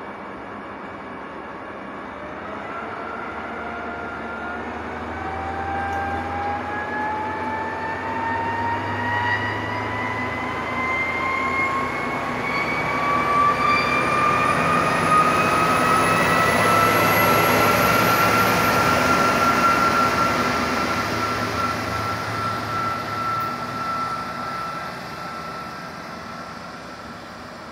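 Passenger train pulling away and gathering speed, a whine rising steadily in pitch for about fifteen seconds and then holding level, over a low engine drone. It is loudest a little past halfway and fades as the train draws off.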